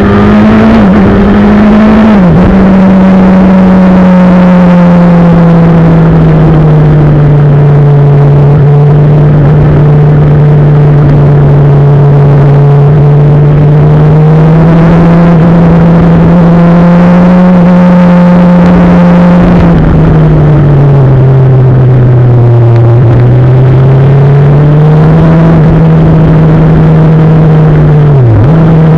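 Motorcycle engine running under way on the ride, its pitch rising and falling with the throttle. It dips sharply and recovers about two seconds in and again near the end, and sinks lower for a few seconds about twenty seconds in.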